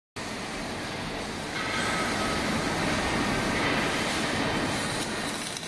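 Steady mechanical running noise of a robotic welding cell's machinery, growing louder about one and a half seconds in, with a faint high whine.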